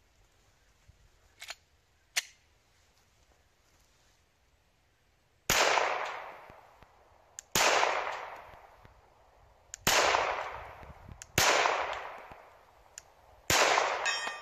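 Five 9mm pistol shots from a Glock 19 Gen5, about two seconds apart, each followed by a long echo that fades out. A brief ring follows the last shot.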